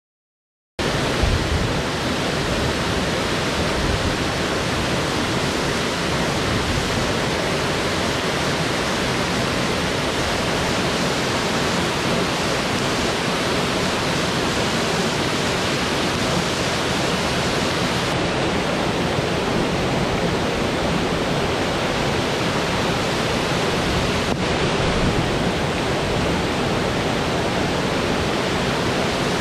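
Steady rush of a small waterfall pouring into a rocky stream, starting suddenly about a second in.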